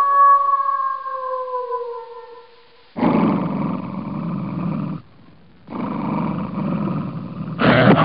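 A wolf's long howl slides down in pitch and fades out. Then come two rough growls, each about two seconds long with a short pause between them, and a louder snarl near the end.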